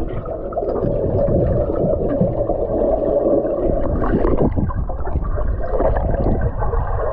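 Muffled rushing and gurgling of water and bubbles, heard with the microphone underwater as a swimmer moves through a pool.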